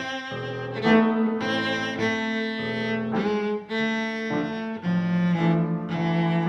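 Music of bowed strings, violin and cello, playing a melody of held notes that change about every half second.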